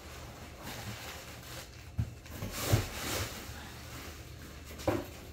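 Unpacking a cardboard shipping box: rustling of paper and plastic packing as a wrapped parcel is lifted out, with a couple of sharp knocks of cardboard, the loudest rustle a little under three seconds in.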